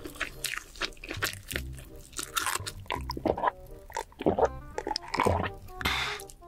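Close-miked chewing and wet mouth sounds from eating sauced grilled chicken, over background music with a steady beat.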